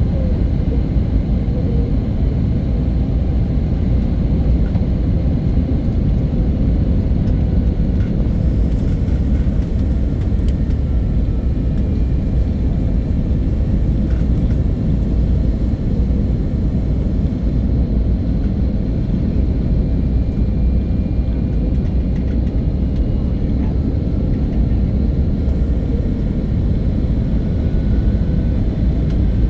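Jet airliner on its approach to landing: a steady low rumble with a few faint, steady whining tones above it, unchanging throughout.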